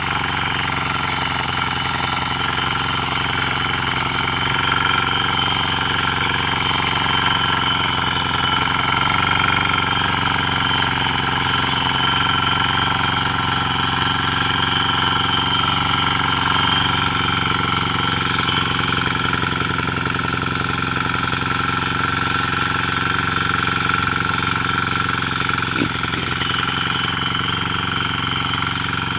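Lombardini engine of a rotary tiller running steadily at an even speed.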